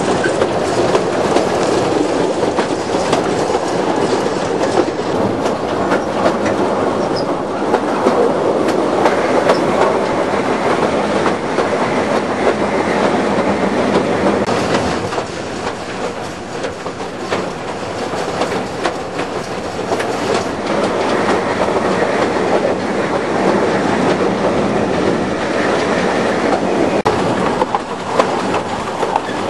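Two-foot narrow-gauge train running along the track, heard from an open carriage: a steady rumble of wheels on rail with fast, dense clattering.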